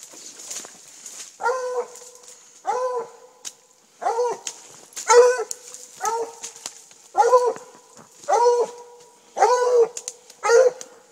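A dog barking over and over, short barks about once a second.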